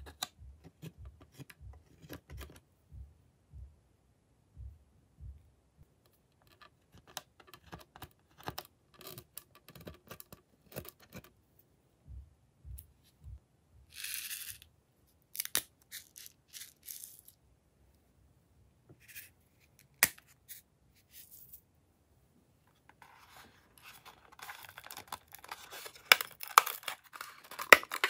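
Small clicks and taps of plastic makeup cases and a scraping tool being handled, with a short hiss about halfway through. Near the end comes a dense crackling rattle of sprinkles being shaken out of a plastic case onto the slime.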